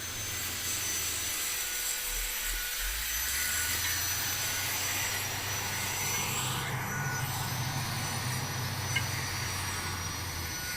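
A heavy diesel engine running steadily, a constant rush with a low hum beneath.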